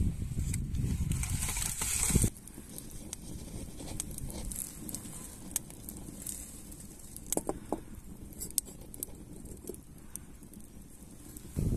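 A person blowing on a small twig fire in a stone stove, a rushing noise that stops abruptly about two seconds in. After that the wood fire crackles quietly, with scattered small pops.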